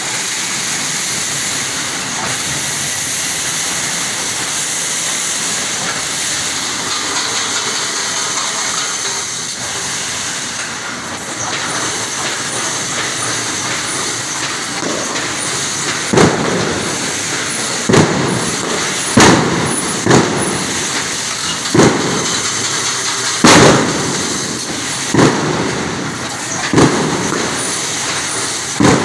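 Welded-wire mesh welding machine running: a steady mechanical hiss, then from about halfway a sharp bang every second and a half or so, one stroke of the welding press per cross wire welded onto the line wires.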